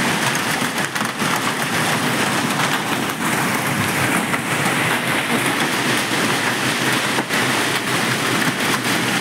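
Heavy hail pelting down without a break: a dense, steady clatter of countless small hailstone impacts.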